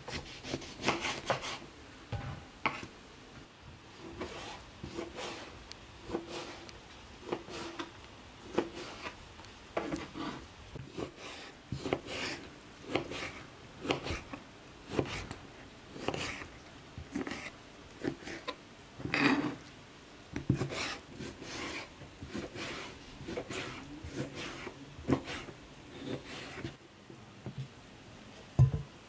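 Kitchen knife cutting through an orange on a plastic cutting board: a long run of short cuts, roughly one or two a second, each ending in a tap of the blade on the board, as the orange is sliced into rounds and then diced.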